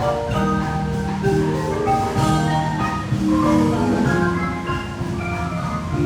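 Guatemalan marimba playing a lively piece, many mallet-struck wooden bars sounding quick notes in several registers at once over a steady low bass line.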